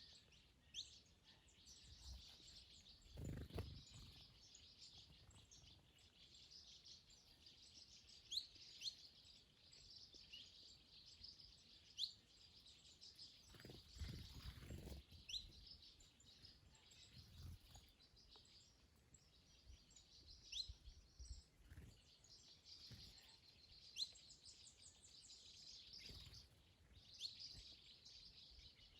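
Faint garden birdsong: many short, high chirps from several birds over a steady high twittering background. Twice, a low rumble of wind briefly rises beneath it.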